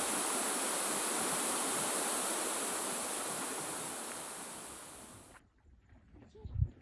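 Steady rush of falling water, fading over a couple of seconds and cutting off abruptly about five seconds in. Then faint outdoor quiet with a single low thump near the end.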